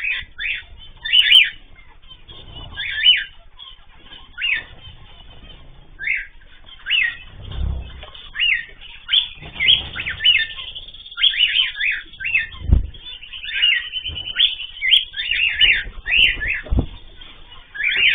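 Pet cage birds chirping: short sharp calls repeated one or two times a second. A few low thumps come in between, the strongest about two-thirds of the way through.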